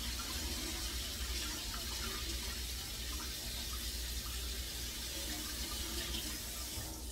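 Kitchen tap running into a sink, a steady rush of water, shut off at the very end.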